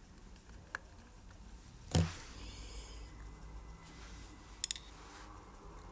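Small watchmaker's hand tools clicking and tapping on a watch movement and bench: a light click early, a sharper tap with a dull knock about two seconds in, and a quick triple click near the end.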